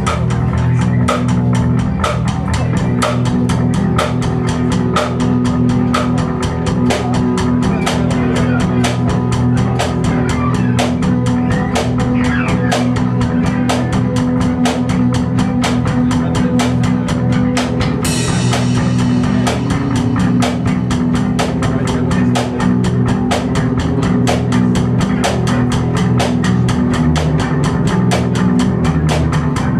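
Loud improvised rock jam: a drum kit keeps up a fast, steady beat under sustained, droning electric guitar. The sound gets brighter with added high hiss about two thirds of the way through.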